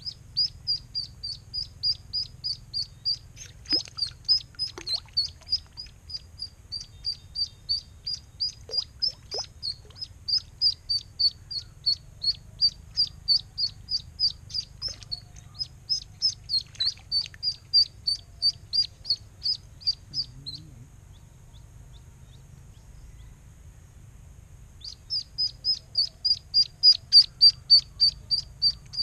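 A duckling used as live bait for snakehead peeping, about three high, short peeps a second in a steady run. The peeps stop for a few seconds after the middle, then start again louder near the end as the duckling is lifted from the water.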